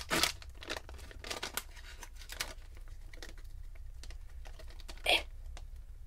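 A plastic-and-foil packet of soft fishing lures being opened and handled, crinkling and crackling. There is a quick run of short crackles over the first couple of seconds, then fewer, and one louder rustle about five seconds in.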